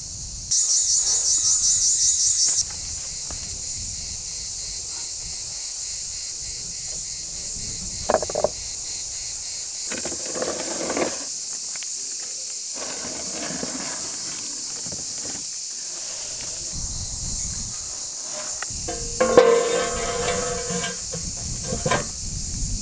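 Steady high insect chorus of crickets, with a louder rapid pulsing for the first couple of seconds. Scrapes and knocks of the clay pot being slid onto the stone oven floor midway, and a longer scrape near the end as the oven door is fitted into the opening.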